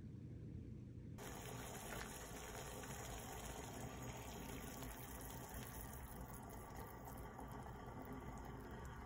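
Water at a rolling boil in a heavy pot on the stove, a faint, even bubbling that starts suddenly about a second in after a low hum.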